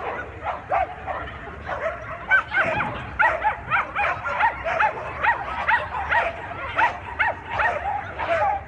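A dog barking over and over in short, high-pitched yips, which come faster from about two seconds in, at two to three a second.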